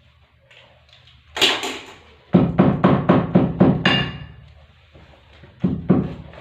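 Sharp knocks with a short ring after each, like hammer blows in a shoe repair workshop: one strike, then a quick run of about seven at roughly four a second, then two more near the end.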